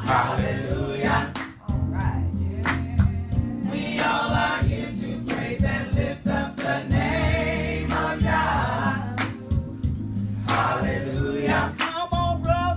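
A choir singing gospel music with band accompaniment: a moving bass line and regular percussion hits under the voices.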